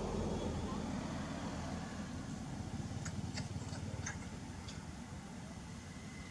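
A few light clicks and crackles from a plastic water bottle as a monkey drinks from it, over a steady low rumble.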